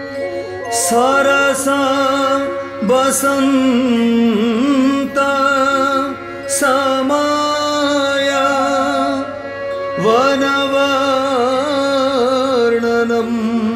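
Odissi classical music in Raag Basant: melodic phrases that glide up into held notes over a steady drone. A few sharp percussion strikes come in the first seven seconds.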